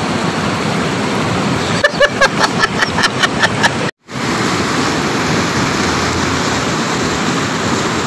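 Fast river water rushing over large boulders and pouring into a pool, a steady loud rush. Just before the middle there is a quick run of about a dozen short, sharp, pitched clicks, followed by a brief dropout to silence where the picture cuts.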